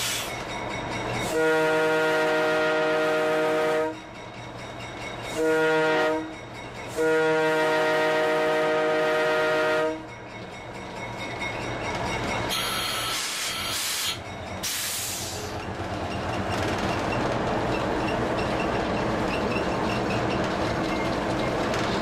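Diesel locomotive air horn sounding for a grade crossing: a long blast, a short one, then another long one, several tones together. Then the locomotive runs on, with the steady noise of the engine and wheels clicking over jointed rail growing louder toward the end.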